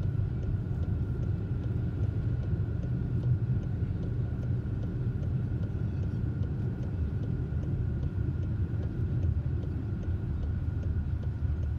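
Steady engine and tyre rumble of a car being driven on a city street, heard from inside the cabin, with a faint steady high whine over it.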